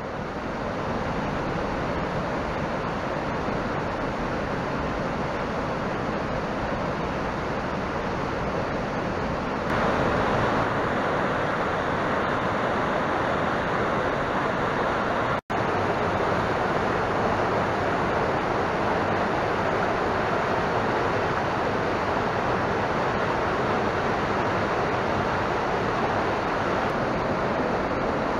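Steady rush of a fast white-water mountain stream tumbling over boulders. It grows louder about ten seconds in and breaks off for an instant about halfway.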